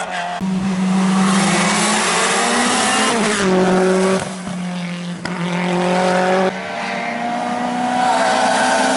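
Racing cars' engines held at high revs on a hill climb, their pitch stepping suddenly several times and falling once about three seconds in as a car lifts off. Tyres hiss through spray on a wet road.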